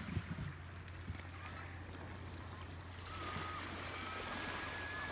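Gulls calling in short, repeated cries from about three seconds in, over the steady wash of surf on the beach and a low steady hum. A few soft thumps near the start.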